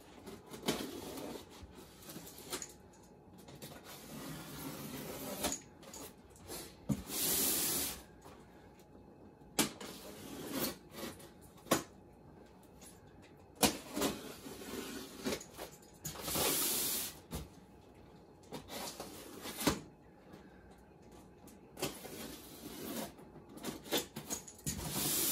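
Cardboard box and styrofoam packing being handled during unpacking: scattered knocks and taps, with short scraping, rustling hisses about seven and sixteen seconds in.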